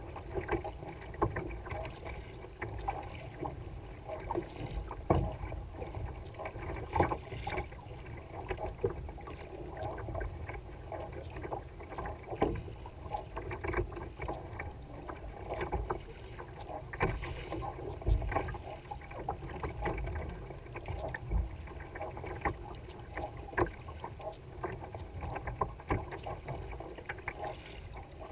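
Water splashing and lapping against the hull of a Libra sea kayak under way. It is punctuated by the uneven swish and splash of double-bladed paddle strokes dipping in on alternate sides, about one or two a second.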